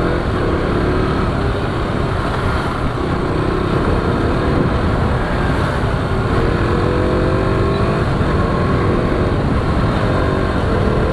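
KTM RC 200's single-cylinder engine running under way, its pitch rising several times as it pulls up through the revs, under a heavy rumble of wind noise.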